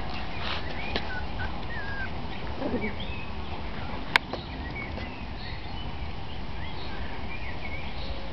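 Schnauzers playing, with short squeaks and whines scattered throughout and one sharp click a little after four seconds in.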